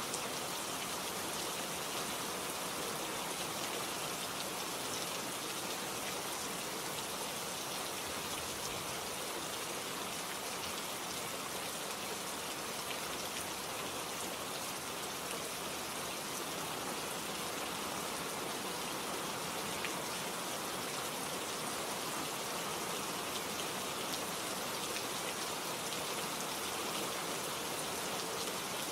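Steady rainfall, many drops pattering on a surface in an even, unbroken hiss.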